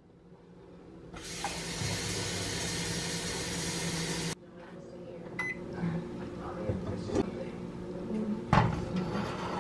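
Tap water running from a kitchen faucet into a nonstick pot, a steady hiss for about three seconds that cuts off suddenly when the tap is shut. Then small knocks, and a louder clunk near the end as the pot is set on the gas stove's iron grate.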